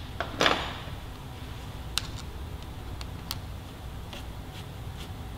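A few light clicks and ticks from small parts being handled and adjusted on a motorcycle handlebar, over a steady low hum. There is a short knock near the start and sharper ticks about two and three seconds in.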